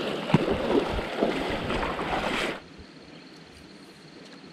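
Creek water rushing and splashing, which cuts off suddenly about two and a half seconds in. A faint steady high tone is left.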